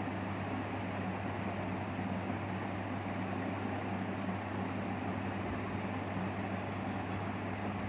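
A steady electric hum with a low buzzing tone and an even hiss, unchanging throughout.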